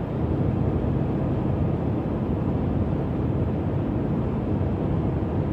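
Steady road and engine noise inside the cab of a Ford F-350 diesel pickup cruising at highway speed: an even, low rumble that doesn't change.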